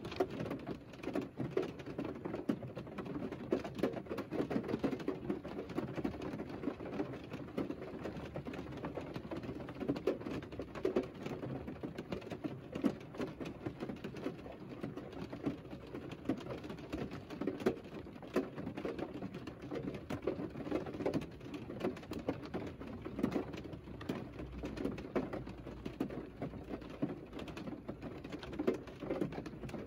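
Rain falling on a Mercedes car, heard from inside the closed cabin: a dense, steady patter of many small drops.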